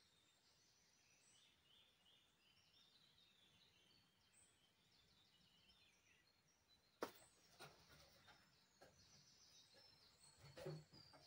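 Faint songbirds chirping in a quiet forest, their calls repeating in short high trills. About seven seconds in comes a single sharp click, followed by scattered small knocks and rustles of handling.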